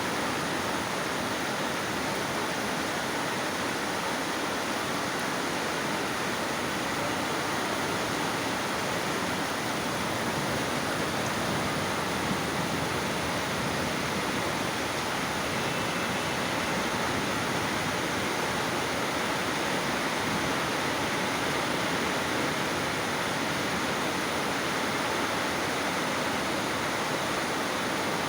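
Heavy rain pouring down, a steady unbroken hiss.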